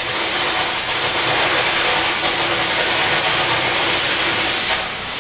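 Air carbon arc gouging torch cutting a cracked cylinder liner out of a steam locomotive's left cylinder: a loud, steady hiss of the arc and its air blast.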